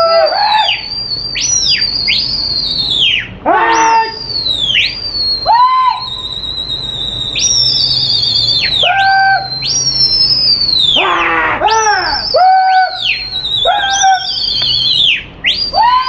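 Loud, repeated human whistling from pigeon flyers driving their flocks in the air. Each sharp whistle swoops up to a high pitch, holds and falls away, some with a warble, and lower whistles overlap at times.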